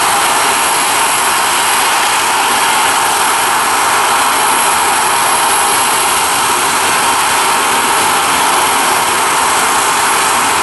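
Jet airliner's twin turbofan engines at takeoff thrust as it lifts off and climbs away: a steady rushing noise that holds even throughout.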